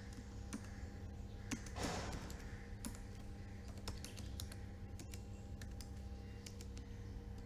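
Computer keyboard being typed on: scattered, irregular key clicks over a faint steady hum.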